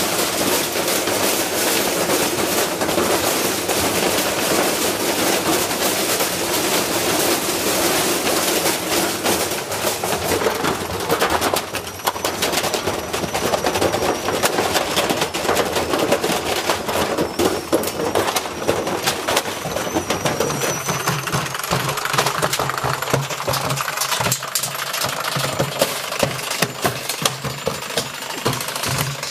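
Whirlpool washing machine spinning a heavy, badly unbalanced load, its drum slamming and rattling violently against the cabinet in a continuous rapid hammering as the machine shakes itself apart. A steady low motor hum comes up under the banging about two-thirds of the way through.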